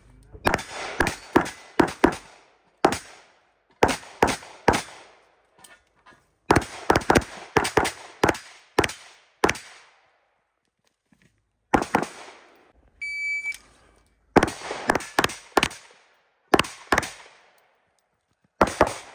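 Pistol shots fired in quick pairs and rapid strings with short pauses between, each shot ringing briefly, as a practical-shooting stage is run at speed. About 13 seconds in, a short electronic shot-timer beep sounds and is followed about a second later by a new string of shots.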